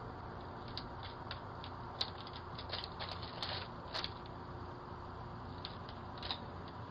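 Squirrel rummaging in a basket of wrapped candy bars: a scatter of small crinkles and clicks from the wrappers, thickest in the first half, over a steady background hiss.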